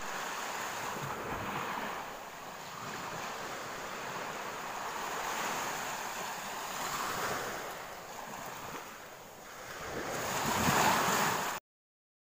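Waves washing on a shore: a rushing surf noise that swells and eases several times, loudest near the end, then cuts off suddenly.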